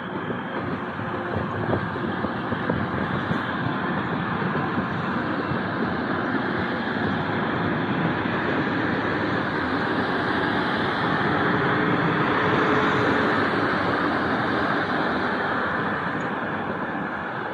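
TransPennine Express multiple-unit train passing on the far track, a steady rumble of running gear and rail noise that builds to its loudest about two-thirds of the way through and then eases as the rear of the train goes by.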